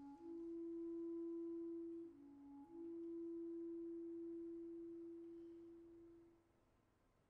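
A single wind instrument holding a soft, pure note, stepping down briefly to a lower note at the start and again about two seconds in, then dying away a little after six seconds in.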